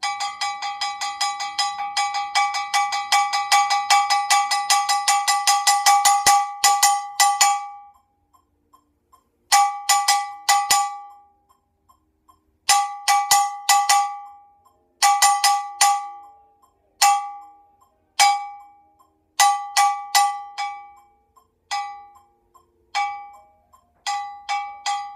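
Brake drum struck with hard mallets, giving a bright, clanking metallic ring at one fixed pitch. A fast, even stream of strikes swells louder over about the first seven seconds, then the strikes come in short groups separated by pauses.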